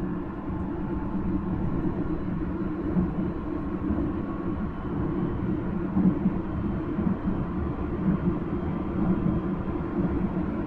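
Nankai 1000 series electric train running, heard from inside the car: a steady rumble of the running gear, with a faint steady tone above it.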